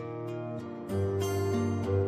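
Background music: plucked guitar playing a gentle melody, growing louder about a second in.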